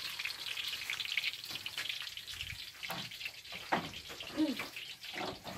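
Plantain slices frying in hot oil in a wok over a wood fire: a steady sizzling hiss with fine crackles.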